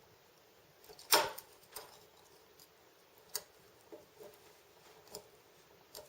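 Scattered light knocks and rustles as a rope is handled and tied into a knot, the loudest knock about a second in.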